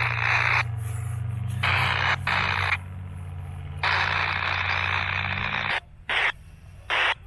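A vehicle engine running with a steady low hum that cuts off suddenly near the end, under repeated bursts of static-like hiss that start and stop abruptly.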